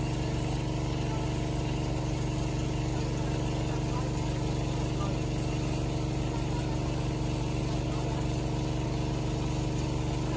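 Small Robin petrol engine driving a water pump, running steadily at one even speed.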